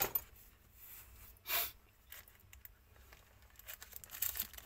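Crinkling of a thin plastic packaging pouch being handled and lifted out of its box tray: a short rustle about a second and a half in, then a run of quick crinkles near the end.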